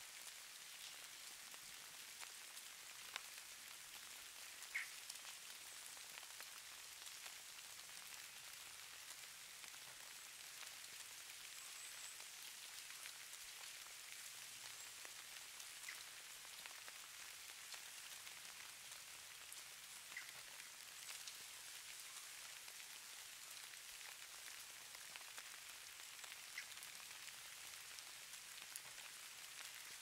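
Faint, even patter of light falling precipitation, with scattered small ticks; the sharpest tick comes about five seconds in.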